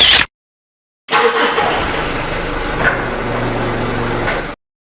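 Heavy machinery running: a steady engine and mechanical noise starts abruptly about a second in, runs for about three and a half seconds and cuts off suddenly. It is preceded by a brief loud burst at the very start.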